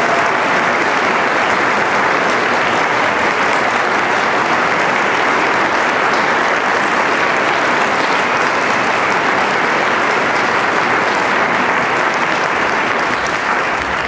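A large audience applauding steadily, the clapping beginning to die away at the very end.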